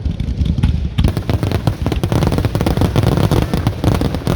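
Fireworks display: a dense, rapid barrage of bangs and crackling that grows thicker about a second in.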